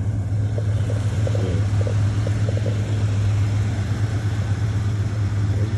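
A car engine idling steadily with a constant low hum, with faint voices in the background.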